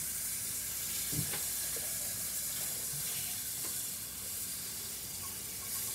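Kitchen tap running: a steady hiss of water that starts abruptly, with a few faint knocks, as a paintbrush is rinsed at the sink.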